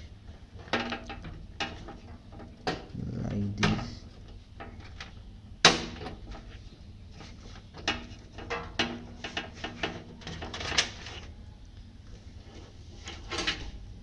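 Plastic clicks and knocks of cables and connectors being handled inside a PC case as the 24-pin ATX power connector is pushed into its motherboard socket. The clicks come in irregular clusters, with one sharp click near the middle the loudest.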